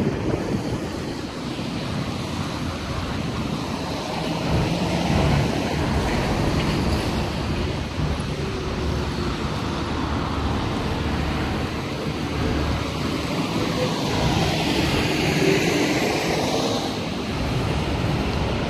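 Road traffic on rain-wet streets: a steady hiss of tyres on wet asphalt mixed with the engine noise of cars and a city bus. A passing vehicle makes a louder hiss about fifteen seconds in.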